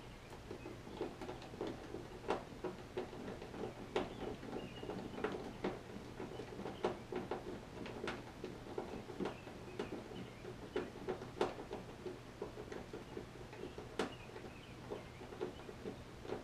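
Irregular small clicks, taps and scrapes of hands working plastic trim parts and their screws, several a second, over a faint steady low hum.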